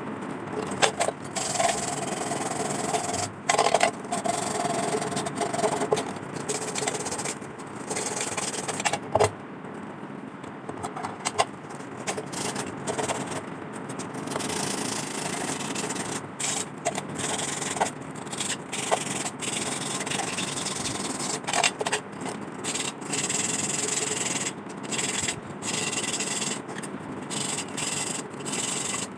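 Sandpaper rubbing rust off the metal of an old lantern by hand, in runs of scratchy strokes broken by short pauses, with a few knocks as the part is handled.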